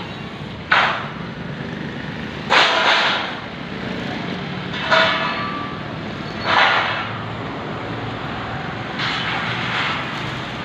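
A series of sudden loud knocks or bangs, each trailing off briefly, at irregular intervals of about two seconds and fainter near the end, over a steady low hum.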